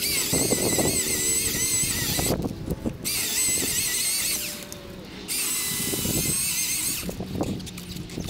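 Milwaukee M18 Fuel cordless chainsaw cutting overhead cedar branches in three bursts of high whine, its pitch wavering as the chain bites, with cracks and rustles of branches between the cuts.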